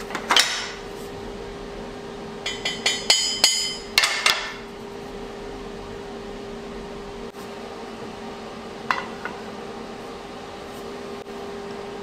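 Steel tubing and bar clanking against a steel welding table: one knock just after the start, a quick run of about six ringing clangs a couple of seconds later, and one more near the end. A steady hum runs underneath.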